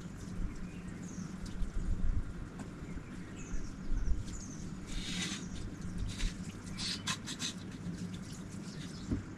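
Birds chirping now and then over a low steady hum, with a brief hiss about five seconds in and a few light clicks just after.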